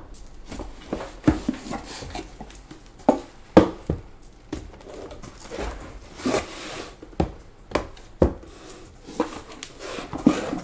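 Cardboard boxes being handled: irregular knocks, taps and rustles as sealed trading-card boxes are lifted out of a cardboard shipping carton, with a longer scrape of cardboard about six seconds in.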